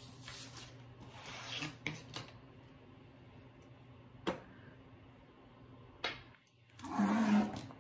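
Soft rustling and handling of paper and sticker sheets, with one sharp click about four seconds in and a louder rustle near the end.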